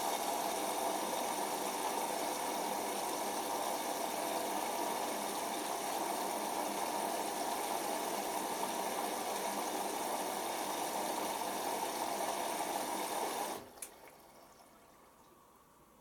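Water rushing into a Hoover Optima OPH714D washing machine through its inlet valve as a steady hiss while the drum stands still, a water fill during the load-sensing phase at the start of a cotton cycle. The flow cuts off suddenly about thirteen and a half seconds in, followed by a single click.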